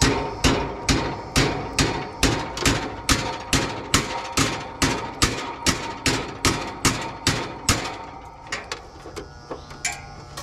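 Hammering: a steady run of sharp blows, about two and a half a second, that stops about eight seconds in, followed by a few scattered knocks.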